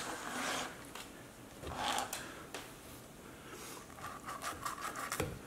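Carving knife sawing down through the skin and meat of a smoked turkey breast on a wooden cutting board. It gives a few rasping scrapes, then a quicker run of short strokes near the end.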